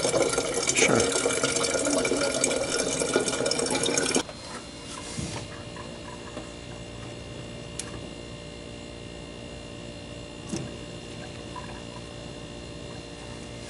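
Water cooler spout pouring a steady stream of water into a plastic bottle, cutting off abruptly about four seconds in. After that a low steady hum, with two light clicks as the cooler's water-inlet solenoid valve is handled.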